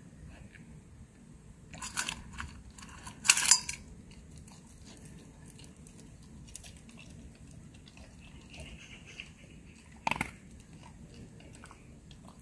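German Shepherd eating dry kibble and raw meat: chewing and crunching in a few short bursts, the loudest a little after three seconds in. There is one sharp knock about ten seconds in.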